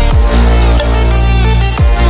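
Background electronic dance music with a heavy, sustained bass and booming kick drums that drop in pitch.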